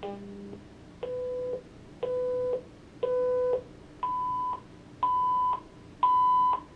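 Zoll ProPaq MD monitor's built-in speaker playing its audio self-test: after a brief low tone at the start, six steady half-second beeps about a second apart, three lower and then three about an octave higher, each set of three getting louder in steps as the test runs through its volume levels.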